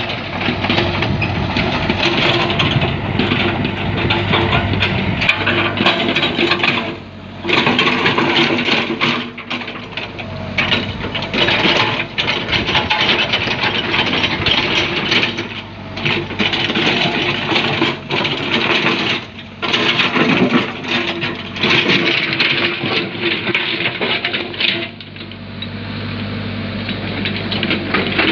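Komatsu hydraulic excavator's diesel engine running under working load, its sound swelling and dropping back briefly every few seconds as the machine digs.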